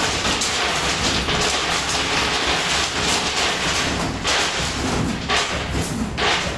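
Coin pusher machine running: a dense, steady jingling and clattering of metal coins over the machine's mechanical rattle, briefly dipping a few times near the end.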